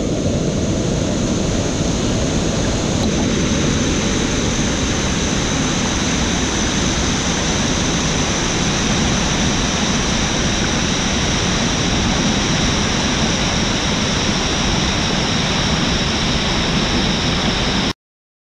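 Floodwater in a swollen rainforest stream rushing over a small waterfall: a loud, steady roar of water that cuts off suddenly near the end.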